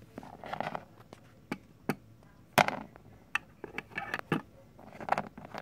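Clicks and knocks of plastic toy figurines being handled and set onto a small plastic toy toilet, with some rustling between them; the sharpest knock comes about two and a half seconds in.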